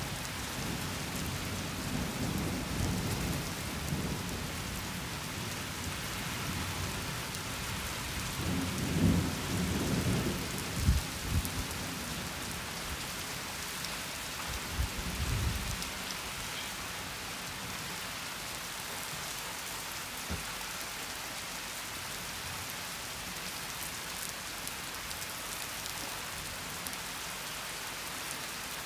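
Steady rain falling, with rolling thunder. Low rumbles come in the first few seconds, the loudest peal with sharp cracks builds around nine to eleven seconds in, and a shorter rumble follows around fifteen seconds, after which only the rain is heard.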